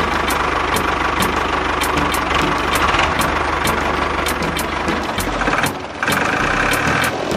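A small motor or engine running steadily with a regular ticking a few times a second; the sound dips and changes about five to six seconds in.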